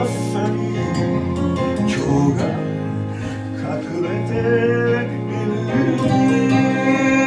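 Music: an acoustic guitar playing, with a voice singing over it.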